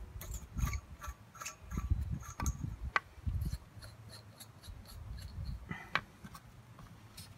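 Steel nuts and washers being unscrewed by hand from threaded anchor bolts and set on the wooden sill plate: faint scattered clicks and scraping, with a sharper click about three seconds in and another about six seconds in.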